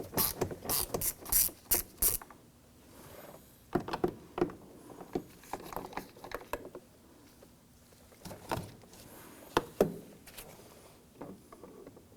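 1/4-inch ratchet turning a T30 Torx bit to back out door-panel screws, its pawl clicking rapidly, then stopping about two seconds in. After that come scattered light clicks and taps.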